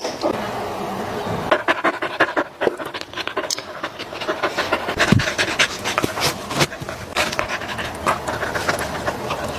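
Golden retriever puppy panting close to the microphone, with irregular rustles and small clicks of handling mixed in.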